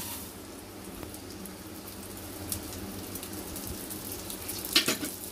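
Hot ghee sizzling steadily in a kadai as dry vermicelli is tipped in from a glass bowl, with one sharp knock near the end.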